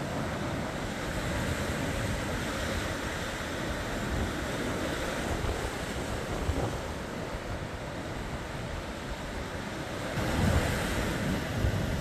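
Rough sea surf washing and breaking against a rocky shore, with strong wind buffeting the microphone. The wind rumble grows louder about ten seconds in.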